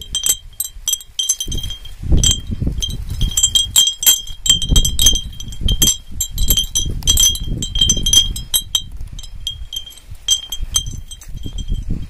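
Iron nuts swinging in the wind against hanging green glass wine bottles, a homemade bird-scaring chime: quick, irregular clinks and rings of glass, several a second, thinning out near the end. A low rumble of wind on the microphone runs underneath.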